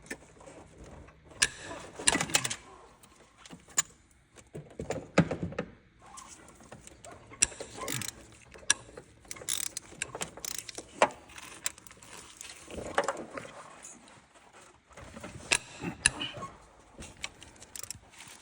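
Hand tools and metal engine parts clinking and clattering at irregular intervals, with a number of sharp knocks.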